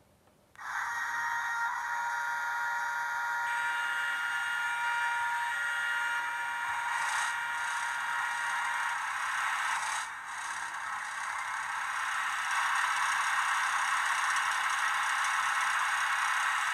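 Sound decoder of a Trix N-scale BR 210 model locomotive playing its engine running sound through the model's tiny built-in speaker: a steady, thin hissing noise with a few held tones, starting about half a second in and growing a little louder past the middle.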